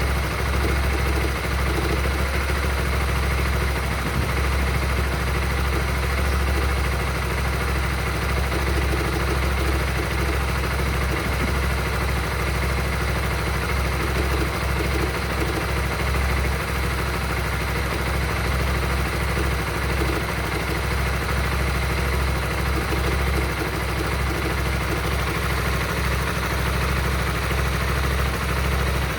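Honda Supra GTR 150's single-cylinder 150 cc engine idling steadily, making a weird noise whose cause the owner doesn't know.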